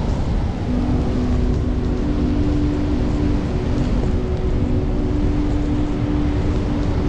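Steady rush of surf on a sandy beach, heavy in the low end, under ambient background music holding long, low sustained notes.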